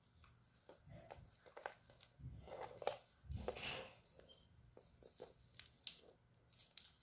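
Faint rustling, scraping and light clicks of adjustable buggy straps being handled, with a few louder scuffs midway and a sharp click near the end.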